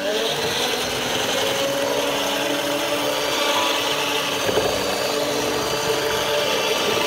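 Electric hand mixer running steadily, its beaters churning cake batter of butter, sugar, eggs and milk in a glass bowl.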